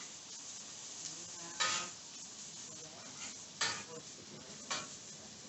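Ham, bacon and vegetables sizzling on a Blackstone flat-top griddle, with a metal spatula scraping across the steel plate three times while spreading bacon grease.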